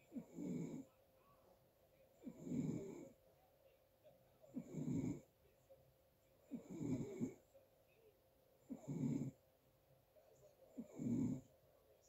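Snoring: six snores in a steady rhythm, one about every two seconds, each lasting under a second, with a faint click just before some of them.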